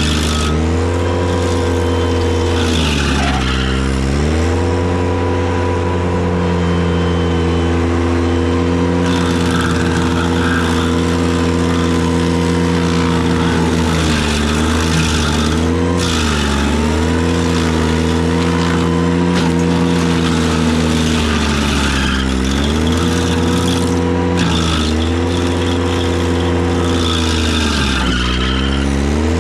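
Ventrac tractor's engine running hard to drive a KC220 stump grinder. Its pitch sags and recovers about five times as the cutter wheel bites into the stump and loads the engine, with bursts of grinding noise over it.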